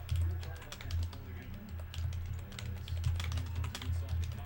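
Quick, irregular light clicks and taps, like typing on a keyboard, over a steady low bass.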